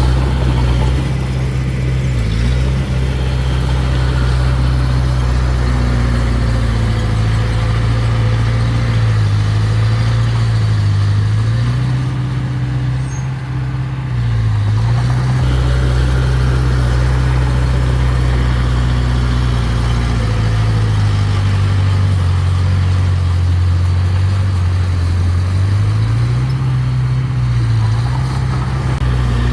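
Mini bulldozer's diesel engine running under load, its low drone dipping in pitch several times as the machine lugs and then picking back up.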